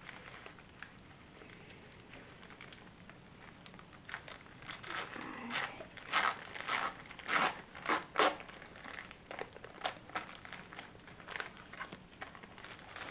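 Shiny foil wrapper of a trading card pack being torn open and crumpled by hand. It is quiet for the first few seconds, then a run of sharp crinkles and rips comes about halfway through, thinning to scattered crackles near the end.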